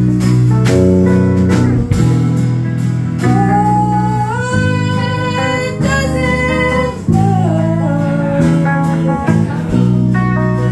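Acoustic guitar strummed in steady chords while a woman sings into a microphone, her voice holding long, sliding notes through the middle of the passage.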